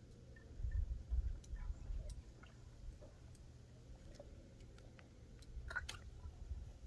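Wind rumbling unevenly on the microphone, strongest about a second in, with scattered small clicks and a short crackle near the end.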